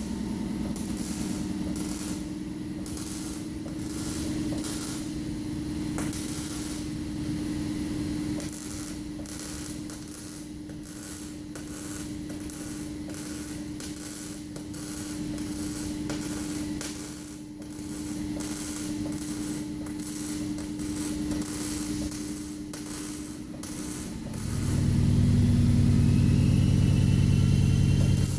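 MIG welder arc crackling and sizzling in irregular bursts of varying length, over a steady hum. About 24 seconds in, a louder low drone starts and keeps going.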